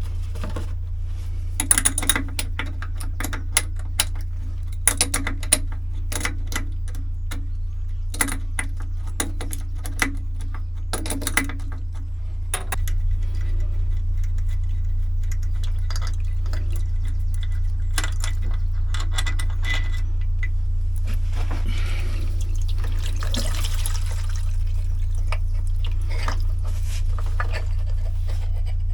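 Clicks and knocks of tools and metal parts as a diesel pre-filter is taken apart, then liquid running out for a few seconds as diesel drains from the filter, over a steady low hum.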